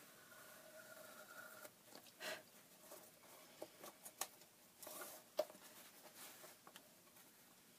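Faint handling noises from working paper on a book: short scraping rustles and a few light clicks and taps, the sharpest click about five and a half seconds in.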